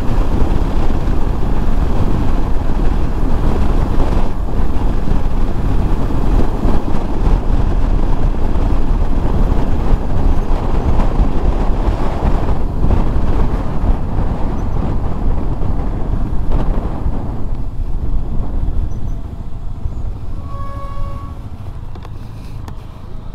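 Wind rushing over a helmet-mounted microphone on a moving motorcycle, a KTM 390 Adventure, a loud steady rush heaviest in the low end that eases off near the end as the bike slows. A vehicle horn beeps once, briefly, about twenty seconds in.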